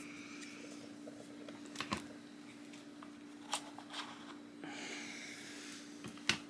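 Faint handling of a multitool and its bits: a few sharp clicks and light rustling, over a steady low hum.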